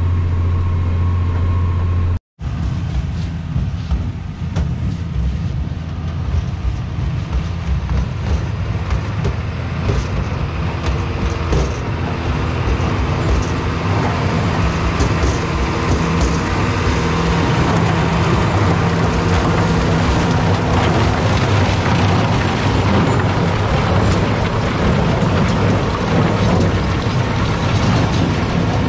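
A steady tractor engine drone, then, after a sudden cut about two seconds in, a Case IH tractor and trailed TIM three-row sugar beet harvester at work: the engine running under load while the harvester's elevators and cleaning rotors clatter and rattle with beet and soil.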